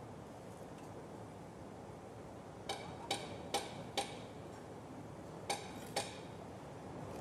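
Six sharp knocks with a short ring over a faint steady background: four in quick succession about half a second apart, then two more a second and a half later.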